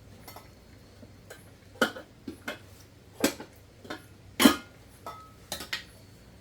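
Eating utensils clicking and tapping against dishes at a meal: about ten separate sharp clinks, the loudest about four and a half seconds in.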